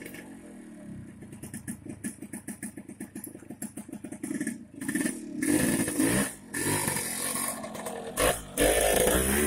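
BSA M20 single-cylinder side-valve engine idling with an even, quick beat. From about halfway a second motorcycle passes close by, louder, its engine note rising and falling.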